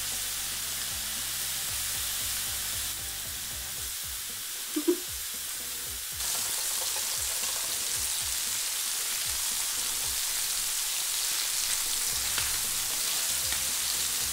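Beef burger patties sizzling steadily on the hot non-stick ribbed plate of an OBH Nordica Quick Grill Prestige electric contact grill, a sign of a well-heated plate. There is a brief sharp sound, as a spatula turns a patty, just before five seconds in, and the sizzle gets louder about six seconds in.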